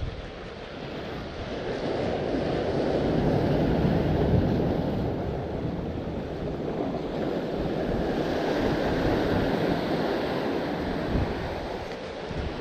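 Ocean surf washing in, swelling twice, with wind buffeting the microphone.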